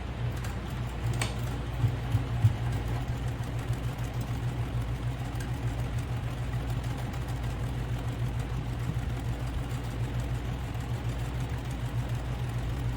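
Electric sewing machine running steadily at a fast, even stitch rate while top-stitching through fabric, with a couple of sharp clicks about two seconds in.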